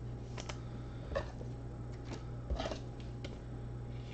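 A few light clicks and taps of trading cards and plastic card holders being handled, over a steady low electrical hum.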